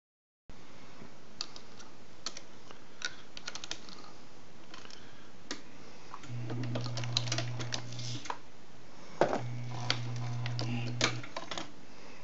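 MEC 9000 shotshell reloading press cycling: light clicks and clacks from the shell plate, hulls and tooling, then two strokes of about two seconds each with a steady hum from the press's drive, a louder clack at the start of the second.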